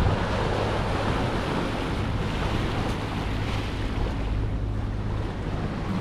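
Wind buffeting the microphone over the steady rush of sea water around a sailboat under way.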